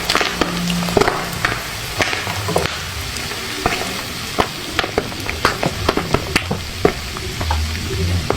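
Popcorn kernels popping in hot oil: irregular sharp pops, several a second, over a steady sizzle.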